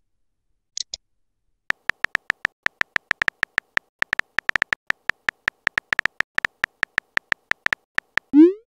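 Synthetic phone-keyboard key-tap clicks from a texting-story app as a message is typed, a quick, uneven stream of about six short clicks a second, each with a faint beep-like tone. There are two faint high ticks about a second in, before the typing starts.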